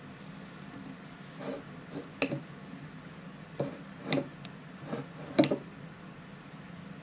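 A spoon clinking against a bowl or dish as food is scooped up for feeding: about seven short, sharp clinks at irregular intervals, over a low steady hum.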